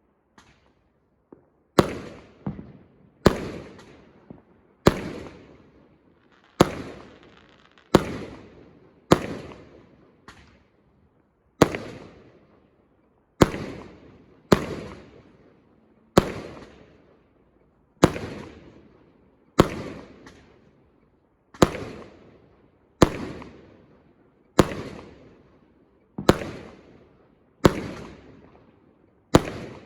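Fireworks going off in a steady series: a sharp bang about every one and a half seconds, each echoing away, starting a couple of seconds in after a couple of small pops.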